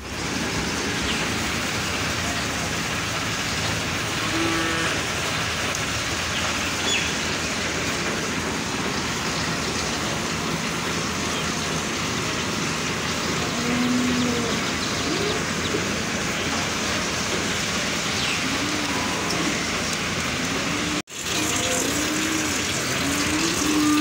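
Holstein Friesian dairy cows calling now and then in short, low moos over a steady background noise, with several calls close together near the end.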